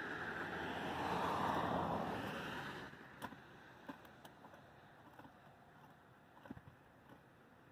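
Horses gnawing a treated wooden fence rail: scattered sharp clicks and scrapes of teeth on wood. A rushing noise swells and fades over the first three seconds.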